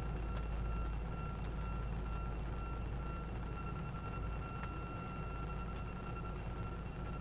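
Steady low rumble of an idling vehicle engine, with a thin, steady high-pitched whine over it.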